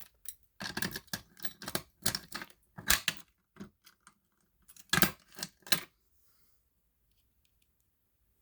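Simplex fire alarm pull station being reset by hand: a run of sharp clicks and clacks over about six seconds as it is worked back into place.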